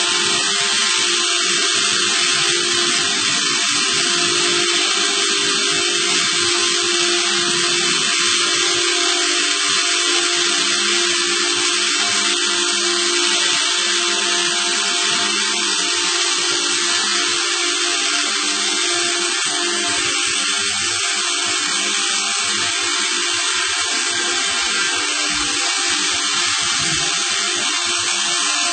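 A motorized machine running steadily: a constant mechanical whine over a dense hiss.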